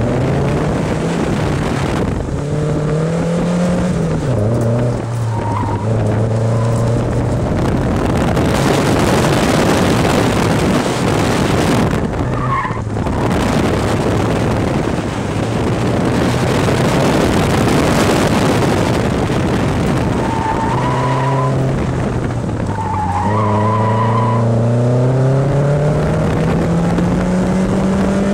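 Nissan 240SX engine revving up and falling back again and again while driven hard, heard from inside the car, with the tires skidding and squealing through a long stretch in the middle.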